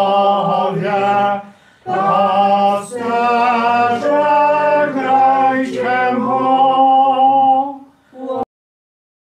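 Mixed male and female voices singing a cappella in held chords, with a brief break about two seconds in; the singing cuts off abruptly near the end.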